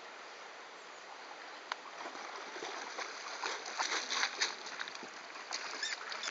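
River water running steadily, with a cluster of small splashes from swimming in it, thickest a little past the middle.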